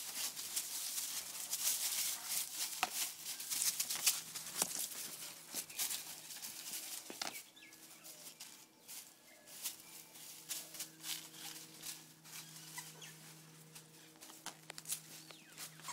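Two dogs tugging at a toy: busy scuffling and rattling with many sharp clicks, easing off about halfway into quieter, scattered clicks.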